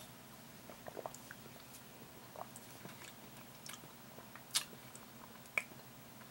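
Faint mouth sounds of someone tasting a drink: small wet clicks of sipping and swallowing, then two sharper lip smacks about a second apart near the end.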